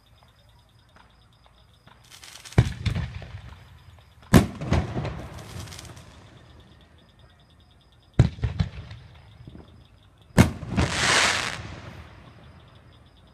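Fireworks going off: four loud bangs a few seconds apart, each followed by crackling, the last trailing into a longer crackling hiss.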